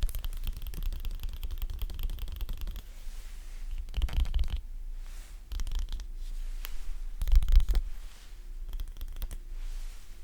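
Close-up sticky crackling and peeling sounds. A dense crackle runs for the first few seconds, then separate sticky peels and taps follow, each with a low thump of handling; the strongest comes a little past the middle.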